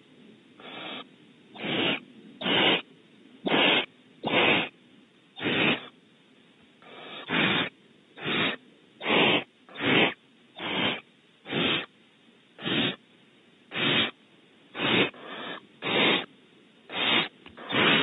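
Barn owl nestling giving its harsh begging hisses ('snoring' calls) at the nest. Each breathy hiss lasts about a third of a second, repeated roughly once a second.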